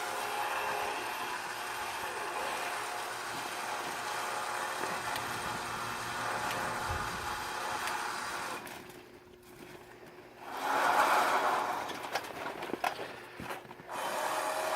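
Log loader machinery running with a steady mechanical drone. About nine seconds in it dies away, then comes back louder for a moment, followed by a few sharp knocks before the drone settles again.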